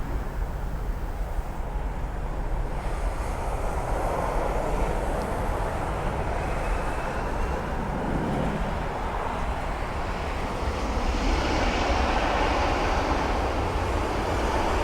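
Jet airliner engines running at the airfield: a steady deep rumble and roar, with a faint rising whine in the middle and a slight swell about eleven seconds in.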